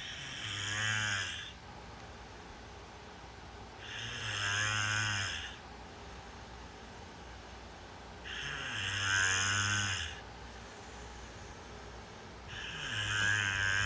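A sleeper snoring in a slow, regular rhythm: four snores, roughly one every four seconds, each about a second and a half long, with quieter breathing pauses in between.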